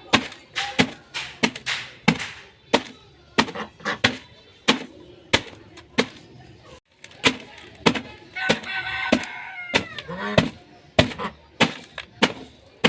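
Dry, hard bread being snapped and broken apart by hand, a rapid series of sharp cracks, about two or three a second. About two-thirds of the way in, a short pitched call falls in pitch beneath the cracking.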